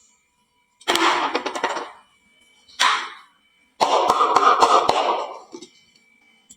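Glass marbles clattering down a wooden marble run in three bursts of rapid clicks and rattles: a short run, a brief one, and a longer run of about two seconds.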